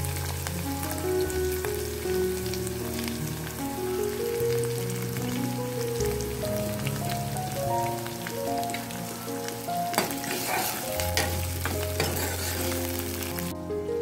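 Chopped onions, garlic and green chillies sizzling in hot oil in a kadai, with a burst of sharper crackling about ten seconds in. The sizzling cuts off suddenly just before the end, with background music and a steady bass line under it throughout.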